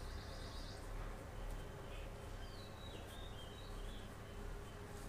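Faint steady background noise with a few faint, high, sliding chirps of birds in the background about two and a half to three and a half seconds in.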